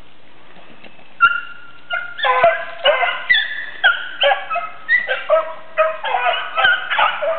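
Beagles baying as they run a cottontail rabbit's trail. A single yelp comes about a second in, then from about two seconds a steady run of overlapping, high-pitched yelping bays, more than one dog giving tongue on the scent.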